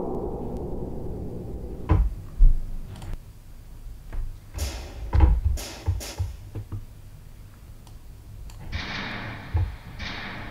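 Playback of processed field recordings of old cement mixers: a dull, filtered scraping texture that fades out over the first few seconds, then scattered thuds and knocks, and a short burst of brighter grinding noise near the end.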